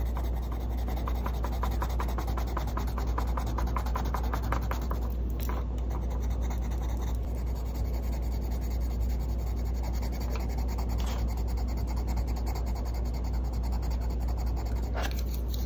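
Caran d'Ache Luminance wax colored pencil scratching on paper in quick back-and-forth shading strokes, filling in color swatches with short pauses between them, over a steady low hum.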